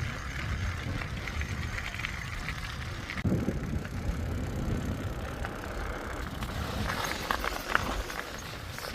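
Steady rumbling noise with a hiss, with crackling clicks bunched near the end, as heard while riding a loaded touring bicycle.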